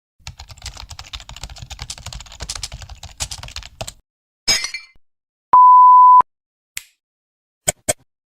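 A run of separate stock sound effects. First a rapid clatter of keyboard-typing clicks for about four seconds, then a short hissy burst. Then a loud, steady one-tone censor bleep lasting under a second, followed by a few single sharp clicks near the end.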